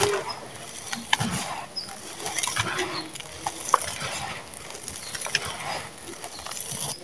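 Dry red sand-cement crunching and crumbling under fingers in a bowl, a continuous gritty crackle with sharp snaps as lumps break, about a second in and again near four seconds. Near the end, loose grit and dust pour into the bowl with a sandy hiss.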